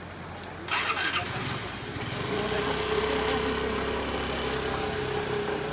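A motor scooter's engine starting about a second in, then running steadily at idle.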